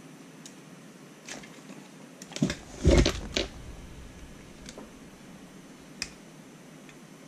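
An Axial Capra 1.9 RC rock crawler being handled on a hard desktop. There are a few light clicks, then a cluster of knocks about two and a half to three and a half seconds in, the loudest a dull thump as the model is set down on its tyres. A couple of small clicks follow.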